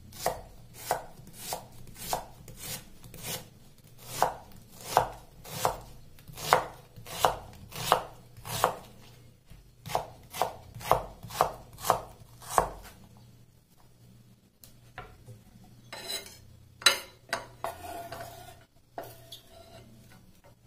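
Chef's knife slicing an onion into half-moon strips on a wooden cutting board: a steady run of sharp knocks of the blade on the wood, about one and a half a second, stopping about two-thirds of the way through. Near the end come a few irregular knocks and scrapes as the cut onion is moved off the board.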